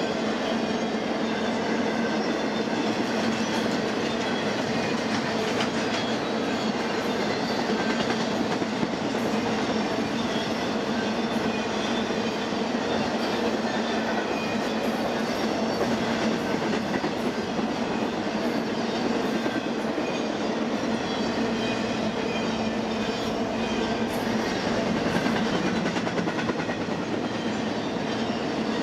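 BNSF intermodal freight train's loaded container and trailer cars rolling past: a steady, unbroken rumble of steel wheels on the rails.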